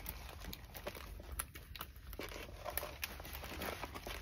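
Clear plastic protective film on a rolled diamond painting canvas crinkling as hands unroll it and smooth it flat, with irregular small crackles.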